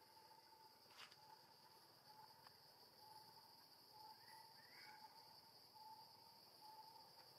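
Faint forest insect chorus: a steady high-pitched drone with a lower note repeating a little faster than once a second, and a couple of faint chirps near the middle.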